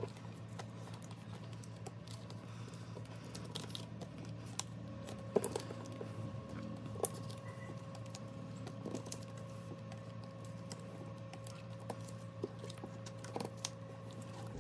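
Soft, scattered taps and plastic rustles of photocards being slid into a binder's clear plastic pocket pages, over a faint steady hum.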